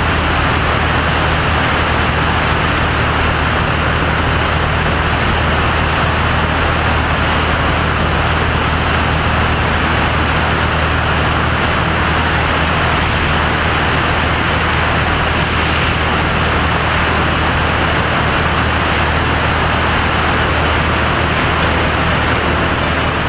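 Single-engine propeller airplane in cruise flight: a steady engine and propeller drone under a constant rush of airflow noise.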